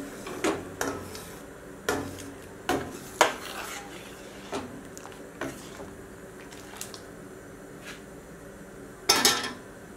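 Metal ladle stirring tomato sauce in a stainless steel pot, clinking and scraping against the pot's sides and bottom in irregular knocks about once a second, with a louder, longer scrape near the end.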